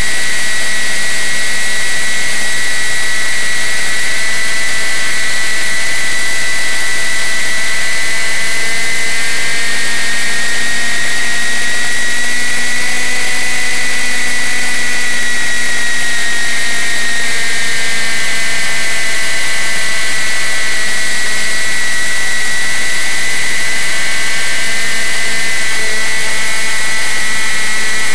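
Model plane's motor and propeller running steadily in flight, a high whine that rises slightly in pitch around the middle and eases back, with wind rush over the onboard microphone.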